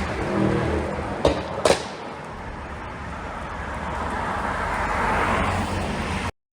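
Mercedes-AMG GT 63 S twin-turbo V8 exhaust with an ECU pop tune: the engine note dies away after a rev, and two sharp pops come about a second and a half in as the tune crackles on overrun. It then runs steadily, growing a little louder, before cutting off suddenly near the end.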